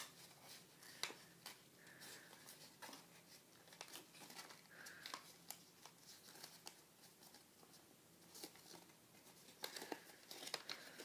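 Faint, scattered crinkles and soft clicks of a sheet of paper being folded and creased by hand in origami.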